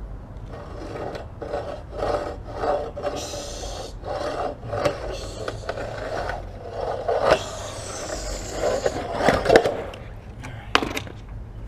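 Skateboard scraped back and forth by hand along a wooden ledge capped with a metal pipe: repeated, irregular rubbing and scraping strokes, with a sharp knock near the end.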